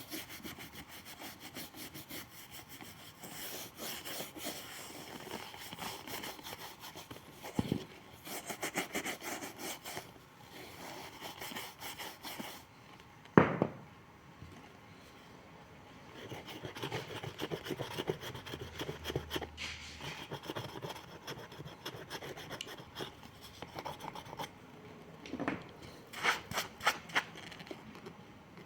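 Repeated hand strokes of an abrasive rubbing on a shoe sole, in runs that stop and start, with a sharp knock about halfway through.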